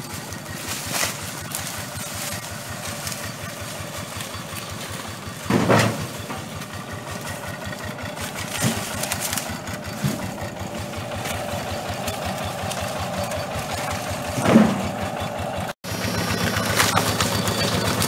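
An engine running steadily at idle, with a few short thumps about six seconds in and again near the end.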